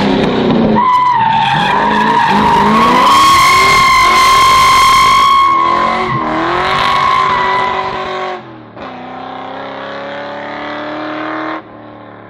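Race car driven hard, its tyres squealing loudly for several seconds while the engine note rises and falls with the throttle and gear changes. About eight seconds in the sound drops sharply to a quieter, steadier engine note.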